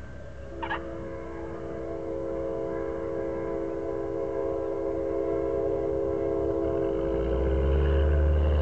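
Cessna 172 touching down, with a brief tyre chirp about a second in as the main wheels meet the runway. Its piston engine and propeller then run with a steady note that grows louder, as power comes on for the touch-and-go. A deep rumble comes in near the end.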